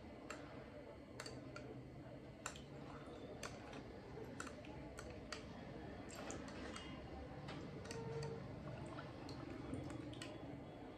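Faint, irregular clicks of a plastic spoon tapping and scraping against a small glass bowl while stirring a liquid mixture.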